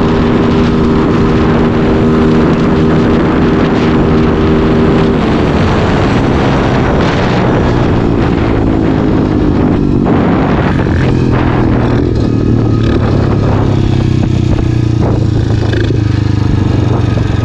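125cc dirt bike's single-cylinder engine running at high revs near its 74 km/h top speed, then the throttle is closed and the engine note falls steadily as the bike slows, settling into a lower, steady note for the last few seconds.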